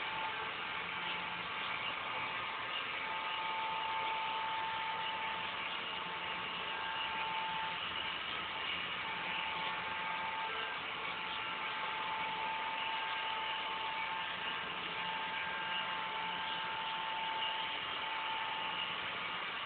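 Robot vacuum cleaner running, a steady whir with a thin tone that fades in and out every few seconds.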